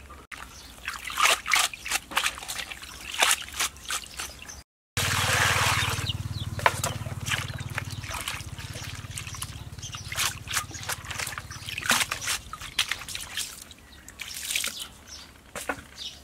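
Hands washing small raw fish in a plastic colander dipped in water: irregular splashing and sloshing as the fish are stirred and rubbed, louder for a few seconds after a short break about 5 s in.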